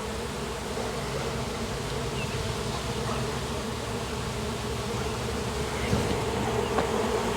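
A swarm of honeybees buzzing steadily in a dense hum as they fly around a log hive, drawn by the scent of their caged queen and searching for the entrance.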